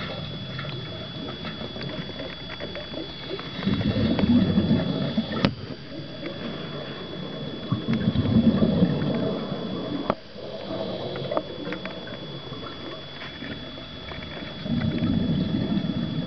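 Underwater sound through a diver's camera housing: three surges of exhaled scuba bubbles, about four, eight and fifteen seconds in, over a steady hiss with a few sharp clicks and a faint high whine.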